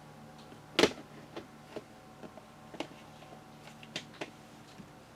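Handling noises: one sharp click about a second in, then a few lighter, scattered clicks and taps, as of a keeper moving tarantula enclosures and feeding gear.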